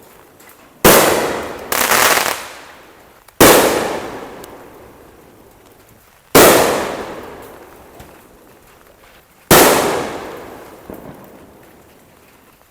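Consumer fireworks going off: five loud bangs a second to three seconds apart, each followed by a long echoing tail that dies away.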